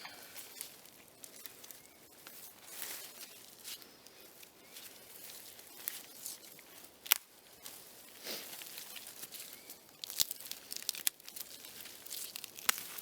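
A small hand saw cutting through a dry wooden stick: uneven rasping strokes, with a couple of sharp clicks from the wood.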